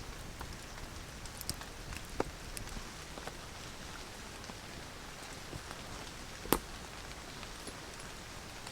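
Steady rain falling, with scattered drop ticks and one sharper click about two-thirds of the way through.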